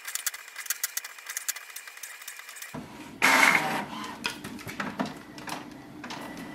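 HP OfficeJet Pro 8210 inkjet printer printing its alignment page: fast, even clicking of the print mechanism, about seven clicks a second, over a faint steady whine. A little after three seconds a louder burst of mechanical noise comes, followed by scattered clicks and clunks as the printed page feeds out.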